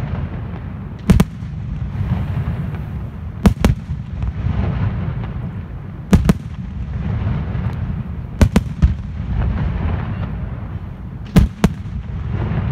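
Aerial firework shells bursting in a display, with sharp bangs coming in close pairs about every two and a half seconds over a continuous rumble and crackle from the show.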